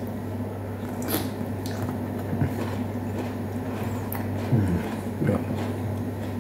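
Someone chewing a juicy ripe apricot: scattered soft wet smacks and squishes, over a steady low hum.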